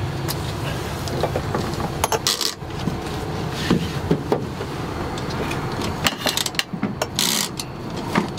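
Metal clicks and clatter of wheelchair tie-down fittings and straps being handled and snapped into the floor rails of a wheelchair-accessible vehicle, a dozen or so sharp knocks, over a steady low hum.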